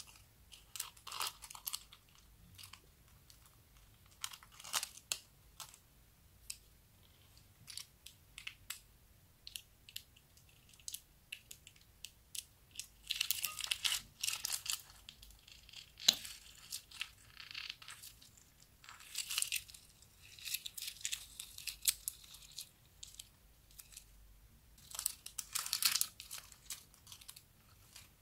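Clear slime being squeezed out of a plastic piping bag: the crinkle of the bag and the wet crackles and pops of the slime as it is piped out, in irregular bursts.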